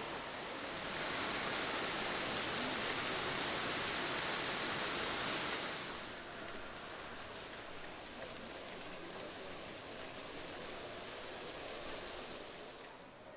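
Fountain jets splashing onto paving: a steady rushing hiss, louder for the first five seconds or so, then softer.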